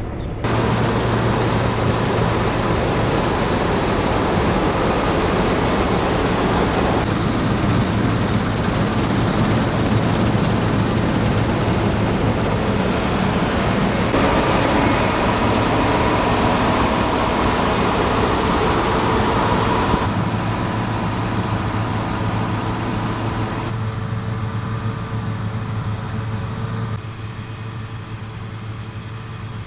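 Claas Lexion 6800 combine harvester, with its Mercedes six-cylinder engine, running under load while cutting wheat: a steady engine hum under a dense rush of threshing and machine noise. The level jumps in abrupt steps several times and is quieter over the last third.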